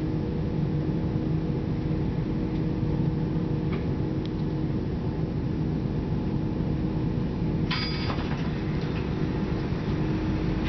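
Chiltern Railways Class 168 diesel multiple unit heard from inside the passenger saloon while standing at a platform: a steady low drone of the underfloor diesel engine with a few held tones. About eight seconds in there is a short high clatter with a high tone.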